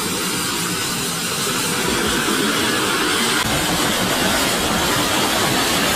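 Boom Supersonic XB-1's three J85 jet engines running at high power on its takeoff roll: a steady roar and hiss that grows a little fuller about halfway through.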